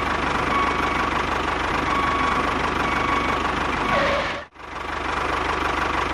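Small motor of a homemade miniature bulldozer running steadily with a fast, even chatter. It cuts out for a moment about four and a half seconds in, then carries on.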